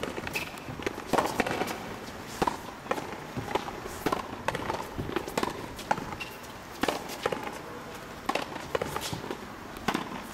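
A frontenis rally. The small rubber ball is struck by strung rackets and slaps against the fronton's front wall in a run of sharp, separate cracks, one or two a second. Players' footsteps on the court fill the gaps between hits.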